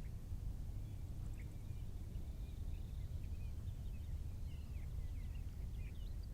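Small birds calling with many short, quick chirps that slide up and down in pitch, growing busier after about halfway, over a constant low rumble.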